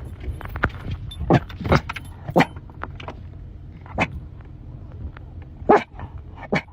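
Steady low rumble of a car on the move, with several short, sharp sounds over it at uneven intervals, the loudest near the end.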